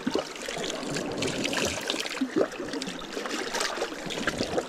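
A small cloth towel being dipped and swished in seawater at the rock edge, with water splashing and trickling over the wash of the sea against the rocks.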